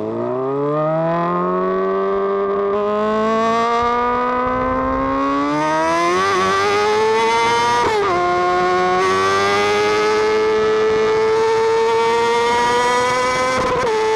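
An engine revving and accelerating. Its pitch climbs steadily, drops sharply for a moment about eight seconds in, then climbs again, with a smaller dip near the end.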